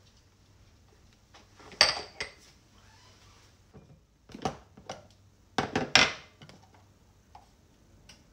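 Plastic kitchen containers and lids clacking and tapping on a countertop: a couple of sharp knocks about two seconds in, another around four and a half seconds, and a quick cluster of clacks near six seconds as a plastic starch canister's lid is worked open.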